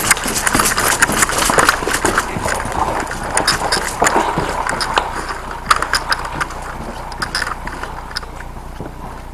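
Hurried footsteps on a hard floor, with kit and gear knocking and rattling at each step. The steps are dense at first and thin out over the last few seconds.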